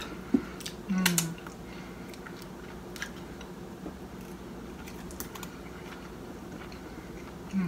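Close-up eating sounds: scattered sharp clicks and crunches of a metal fork in a ceramic bowl and of chewing, with a short hummed "mm" about a second in.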